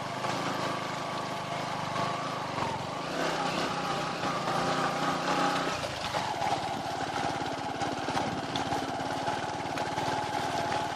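Off-road vehicle's engine running steadily, its pitch shifting about three seconds in and again about six seconds in.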